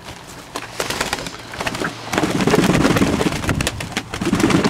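Fantail doves flapping their wings close by: a flurry of wingbeats with sharp claps and clicks, heaviest from about two seconds in.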